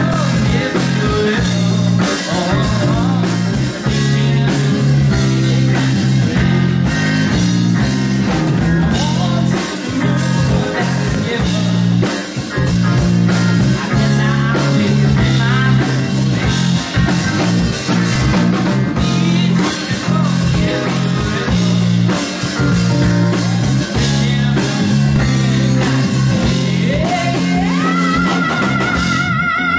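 A funk-fusion band playing live: electric bass line, drum kit, electric guitar and keyboard, with a male singing voice. Near the end the singer slides up into one long held note with vibrato.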